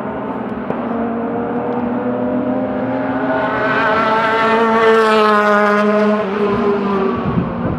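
Racing car engine passing at speed: it swells to its loudest about five seconds in, then fades as it goes by, over the steady drone of other engines on the circuit.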